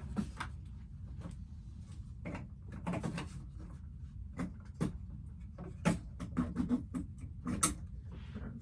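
Irregular clicks, knocks and rustles of plastic animatronic parts being handled and fitted together while the head is put on, the sharpest click near the end.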